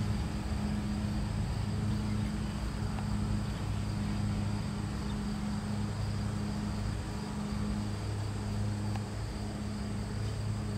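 Diesel freight locomotive engine droning steadily as the train approaches, a low hum holding the same pitch throughout. Insects trill steadily and high in the background.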